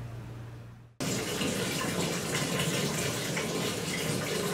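Hot water pouring from a bath spout into a tub as the bath is filled: a steady rush of running water that starts suddenly about a second in, after a faint steady hum.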